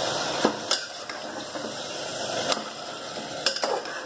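A steel ladle stirring mutton and masala in an aluminium pressure cooker, scraping and clinking against the pot with a few sharp clinks, two of them close together near the end.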